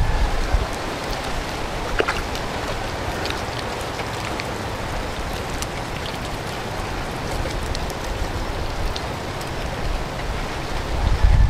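Hands smoothing and pressing wet clay: a steady hiss with a few faint wet clicks, the clearest about two seconds in.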